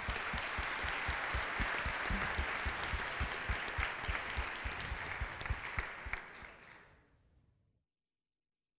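Audience applauding, a dense patter of many hands clapping that fades away about seven seconds in.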